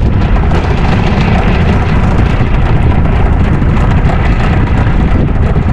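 Wind buffeting the microphone on an open boat at sea: a loud, steady, rumbling rush with no voice or engine tone standing out.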